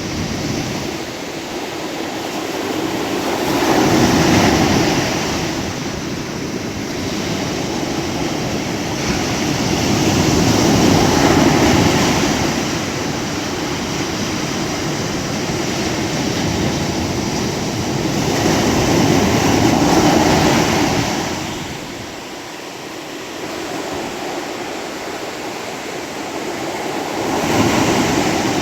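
Ocean surf: waves breaking and washing in, the rushing noise swelling and easing in four slow surges, roughly every seven to nine seconds.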